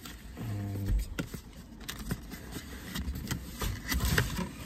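Cardboard drone packaging being handled: light clicks, knocks and scrapes as the box lid and inner trays are lifted and moved, with a brief low hum about half a second in.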